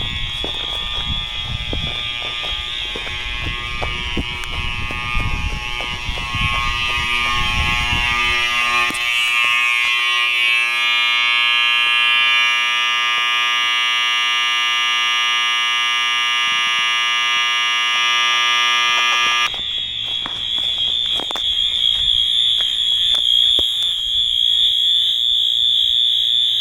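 Overfill alarms sounding continuously as one steady, high-pitched electronic tone. A low rumble underlies the first eight seconds or so.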